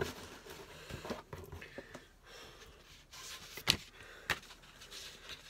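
Rustling and small knocks of boxed items and packaging being handled, with one sharp knock a little past halfway and a smaller one just after it.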